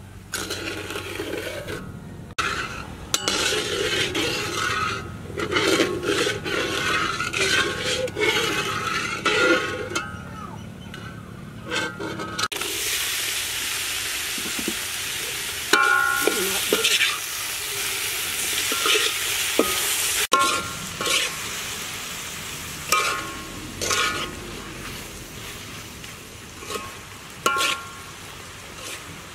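Metal spatula stirring and scraping in a metal wok. About twelve seconds in, the sound changes to a loud sizzling hiss of pineapple pieces cooking in bubbling sugar syrup, with the spatula clinking and ringing against the wok; scraping strokes carry on toward the end.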